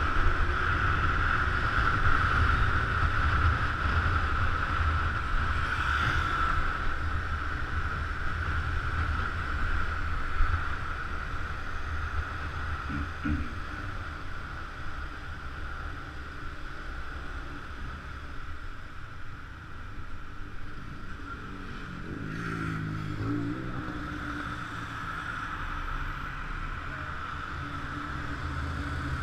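Riding on a scooter: wind buffets the microphone over a steady engine drone, and both grow quieter after about ten seconds. A short rising engine sound comes a little past twenty seconds.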